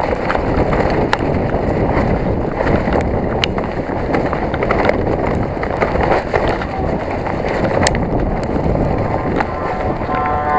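Specialized Enduro 29 mountain bike descending a trail at speed: wind rushing over the microphone and tyres rolling over dirt, with many sharp clicks and rattles from the bike and loose stones.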